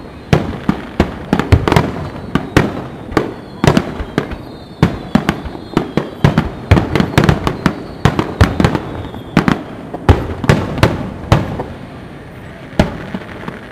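A rapid barrage of aerial firework shells bursting, several bangs a second with faint falling whistles, thinning out to a few last bangs near the end.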